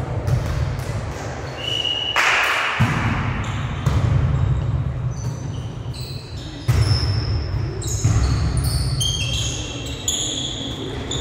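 A volleyball being struck about five times in a rally, each hit a sharp smack that echoes in the gym hall, with short high squeaks of sports shoes on the court floor, thickest in the last few seconds.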